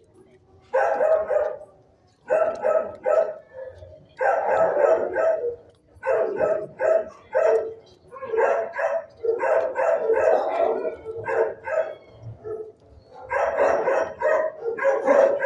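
Dog barking in repeated volleys of several quick barks each, with short pauses between them.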